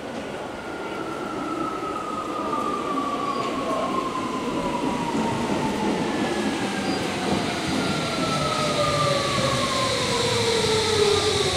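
Tokyo Metro 17000 series (80 series) train braking into the station: the whine of its Hitachi full-SiC MOSFET VVVF inverter and sealed 8-pole permanent-magnet motors falls steadily in pitch as it slows, over the rumble of wheels on rail.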